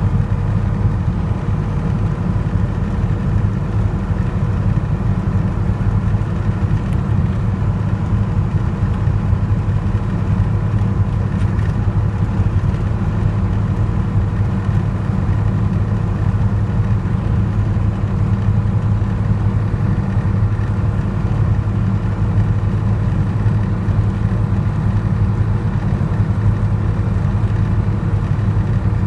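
Inside the cab of a 1995 Dodge Ram with the 5.9-litre Cummins 12-valve turbo-diesel, cruising at highway speed: a steady, low engine drone mixed with road noise.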